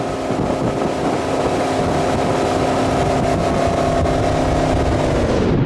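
Towboat engine running steadily at towing speed, a constant hum over the rush of water and wind. The engine pitch drops right at the end.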